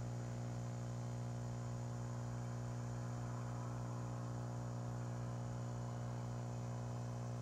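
Aquarium diaphragm air pump running with a steady electric hum, pumping air into a sealed battery pack for a low-pressure leak test.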